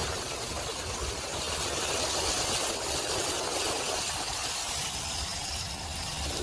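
Steady street noise from the engines of vehicles running, with an even hiss on top and a low rumble underneath.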